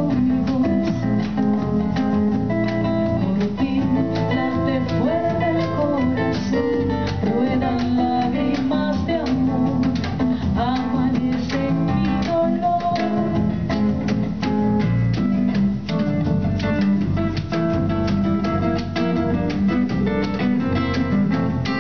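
Live acoustic music: a nylon-string guitar playing with hand-drum percussion, and a woman's singing voice coming in at times.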